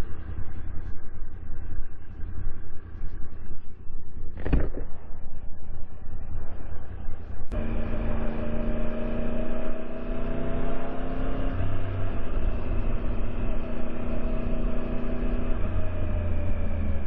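Sport motorcycle riding at speed, with heavy wind rumble on the microphone. From about seven seconds in, the bike's engine comes through as a steady hum at constant revs, easing slightly lower near the end.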